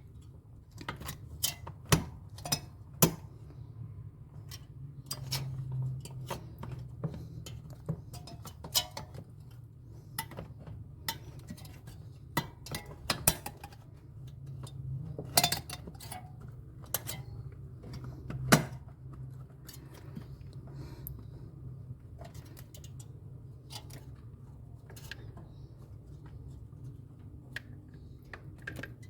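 Irregular clinks, taps and sharp knocks of hand tools and metal parts being handled during refrigerator repair work, over a steady low hum.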